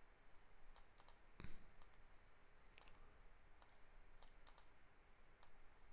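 Faint, scattered clicks of a computer mouse and keyboard, about a dozen in all, with one louder soft thump about a second and a half in.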